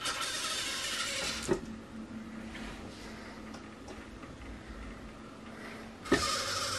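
Hobby servo motors of a six-servo metal robot arm whirring as the arm swings, for about a second and a half and again briefly near the end. A sharp click comes after the first move, and a low steady hum runs between the moves.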